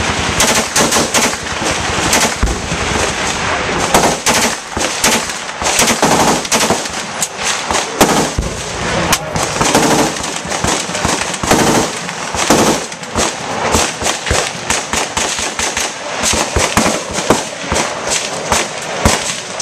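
Machine-gun fire: bursts of rapid shots following one another, overlapping.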